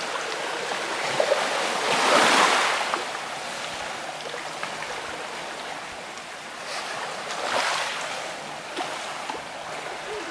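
Black Sea waves breaking on the shore in steady surf, with a large wave about two seconds in and a smaller one about seven seconds in.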